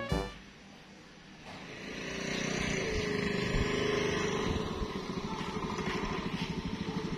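Small motor scooter engine approaching and slowing to a stop, then idling with a quick, even putter.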